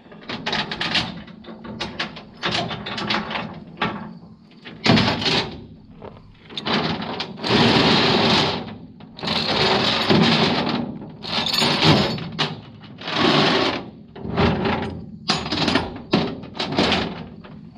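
Steel tie-down chain rattling and dragging across a steel diamond-plate trailer deck as the chains are unhooked and pulled in, in a run of clanking bursts, some drawn out for a second or two.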